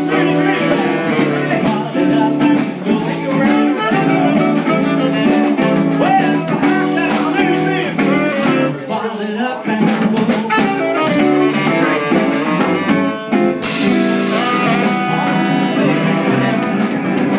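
Small live band playing a bluesy jazz number: guitar to the fore over bass and drum kit. The music thins briefly about halfway through, then comes back in with a cymbal crash.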